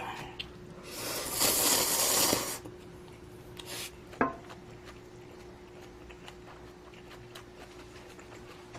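A person slurping instant budae-jjigae ramen noodles in one long, loud slurp about a second in. A shorter slurp follows near four seconds, then a small clink of a utensil.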